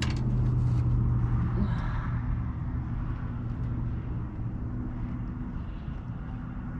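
A steady low engine hum, as from a motor vehicle running nearby, fading over the last few seconds over a constant low rumble. A few light clicks come right at the start.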